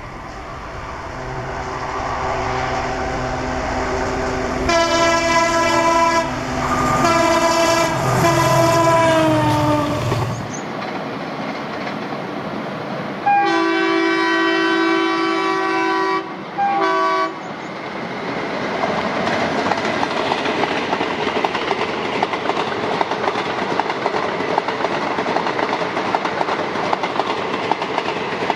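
Indian Railways ALCO WDM 3A diesel locomotives: engine running with a low drone while the horn sounds three long blasts, the last dropping in pitch as the locomotive passes. After that another horn blast and a short toot, then steady clickety-clack of the coach wheels over the rail joints.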